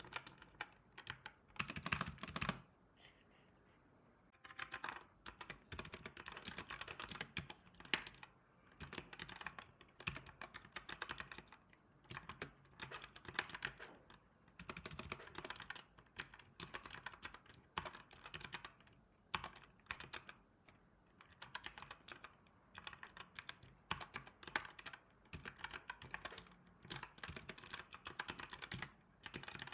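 Typing on a computer keyboard: quick runs of key clicks in bursts, with short pauses between them and a longer pause about three seconds in.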